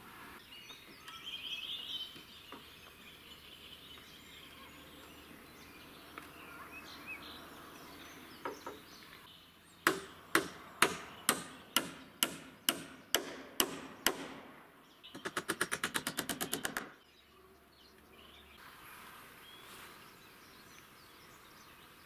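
A hammer striking about ten blows, roughly two a second, on timber scaffolding, then a power driver rattling rapidly for about two seconds as a screw is driven in. The sounds come from fixing the scaffold with metal angle brackets and self-tapping screws.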